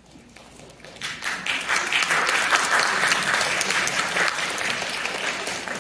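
Audience applauding, breaking out suddenly about a second in and holding steady.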